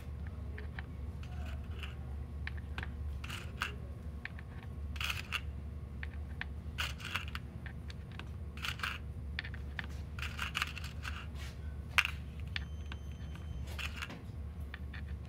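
Small metal pins clinking as they are picked out of a pegboard cup and pushed one by one into its holes, a short cluster of clicks every second or two, with one sharper click about twelve seconds in. A steady low hum runs underneath.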